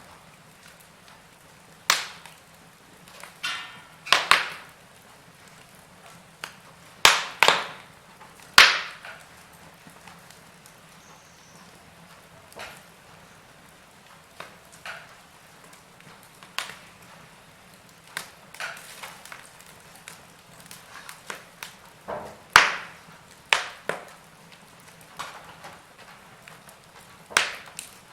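Wood fire burning in a fireplace, crackling with irregular sharp pops and snaps every second or two over a faint steady hiss; a few pops are much louder than the rest.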